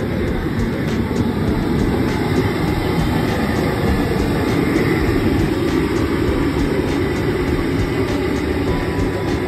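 Busy street ambience: a steady, loud low rumble of traffic and crowd noise.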